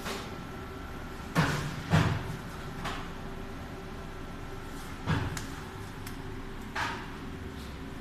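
Four sharp thumps and knocks from the dishwasher's sheet-metal cabinet being handled, two close together near the start and two further apart later. Under them runs a steady electrical hum with a faint high whine that stops about halfway through.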